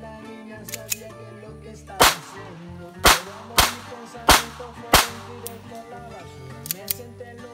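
Spanish Star .22 pistol fired five times in quick, uneven succession, the shots half a second to a second apart, over background music.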